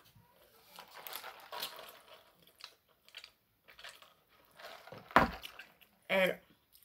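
Quiet eating and drinking sounds: faint rustles and small clicks as she eats fries and drinks from a soda cup, then a sharp thump about five seconds in and a brief vocal exclamation near the end.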